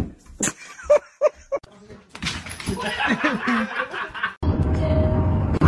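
People laughing and chuckling, after a few short high-pitched squeaks about a second in. A louder steady low sound takes over near the end.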